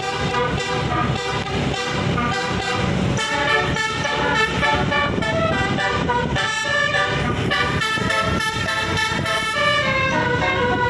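Bus 'telolet' basuri horn, a multi-tone air horn, playing a quick tune of shifting notes without a break, over a low rumble.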